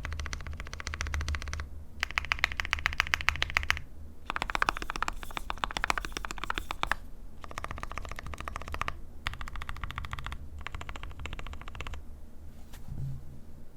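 Fast typing on a mechanical keyboard with lubed linear switches, NovelKey Creams with UHMWPE stems, in an aluminium-plate board with PBT keycaps. The keystrokes come in quick runs of a second or two with short pauses between them, and they grow fainter near the end.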